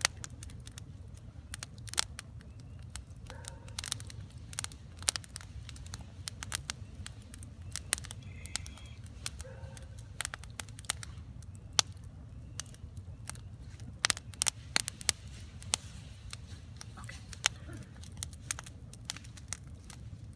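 Wood campfire crackling: a run of irregular sharp pops and snaps from the burning logs over a steady low rumble.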